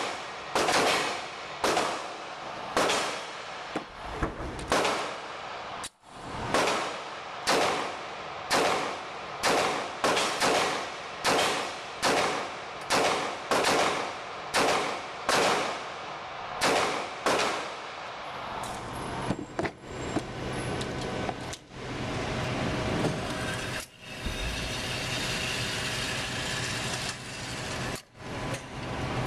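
Beretta PX4 Storm Subcompact 9mm pistol firing a long string of shots, roughly one or two a second, each with a short echo off the walls of an indoor range. The shooting stops about two thirds of the way in, leaving a steady low hum and noise.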